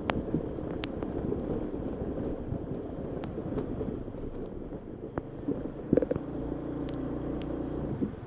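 Honda ADV150 scooter's single-cylinder engine running, with scattered sharp clicks and knocks over a rough trail and a heavier clatter about six seconds in.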